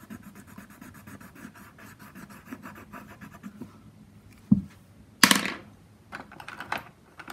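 Yellow coloured pencil scratching rapidly back and forth on paper as a small area is coloured in, stopping about three and a half seconds in. A soft knock and a brief, louder rustle follow as the pencil is put down and another one is picked up.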